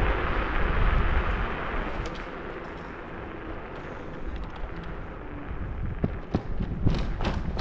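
Wind buffeting the microphone and road rumble while riding an electric scooter, easing off in the middle as it slows, with a few sharp knocks and rattles near the end.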